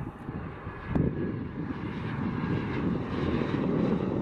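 Hawker 800-series business jet on landing approach with gear down, its tail-mounted turbofans giving a steady rushing jet noise with a faint high whine.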